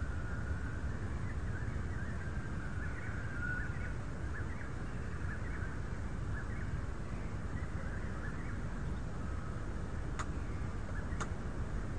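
Wind buffeting the microphone with a steady low rumble, under scattered faint bird chirps. Two sharp clicks about a second apart near the end.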